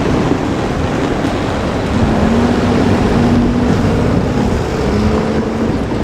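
Train running past close by: a loud, steady rumble, with a humming tone joining about two seconds in.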